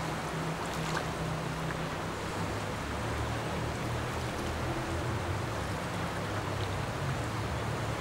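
River water flowing in a steady, even rush, with a low hum underneath that drops in pitch about three seconds in.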